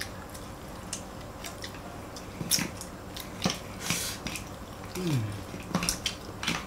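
Fried crab shells being cracked and pulled apart by hand, with irregular sharp snaps and crackles, and chewing. A short falling vocal sound about five seconds in.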